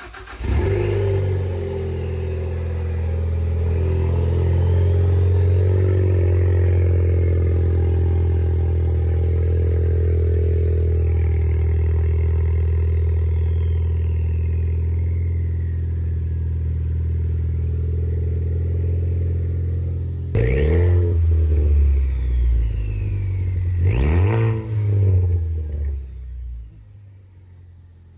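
2013 Ford Focus ST's turbocharged four-cylinder engine idling steadily through its exhaust. It is then revved twice, about twenty and twenty-four seconds in, each rev rising and falling back. The sound cuts off near the end.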